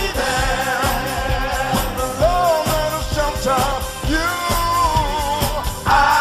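Live band playing a Motown-style song with a vocal group singing sustained harmonies over a steady drum beat and bass; the voices swell back in louder near the end.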